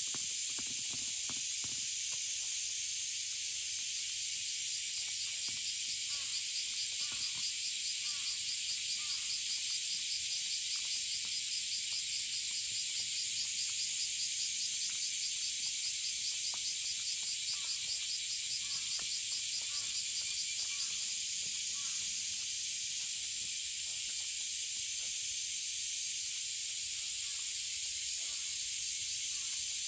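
A dense, steady chorus of summer cicadas, high-pitched and hissing, with a faster pulsing trill running through it for a long stretch in the middle. Faint soft clicks of cats chewing wet food sit underneath.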